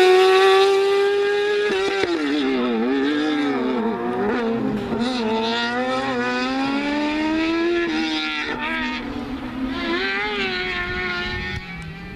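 Fiat 500 Maxi race car's tuned two-cylinder engine revving hard as it pulls away. The pitch drops about two seconds in, wavers, climbs steadily, then falls again as the driver lifts and gets back on the throttle through the slalom. The sound slowly fades toward the end.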